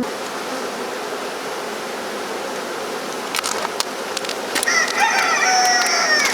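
A honeybee swarm buzzing steadily close by. Near the end a rooster crows once, a call of about a second and a half that is louder than the buzzing.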